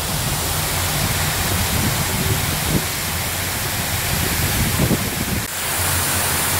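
A tall, thin waterfall pouring off a rock cliff and splashing into the lake below: a steady rushing hiss with a low rumble underneath. It dips briefly about five and a half seconds in.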